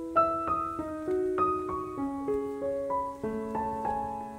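Background piano music: a melody over chords, with a new note about every half second.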